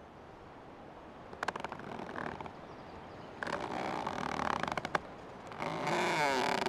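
Old tree creaking: three long creaks, each made of rapid ticking with a wavering pitch, the last one the loudest.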